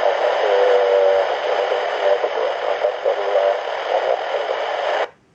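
Handheld airband scanner receiving a weak open transmission: loud static hiss with a faint, garbled wavering tone underneath. It cuts off abruptly about five seconds in as the squelch closes.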